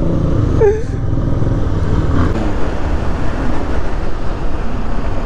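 Motorcycle engine running steadily on the move, with a low, even rumble of engine and road noise.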